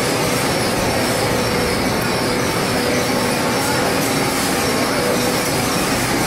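PVC wire coating machine running: a steady, even mechanical noise with a faint steady hum, as its take-up drum winds the green PVC-coated wire.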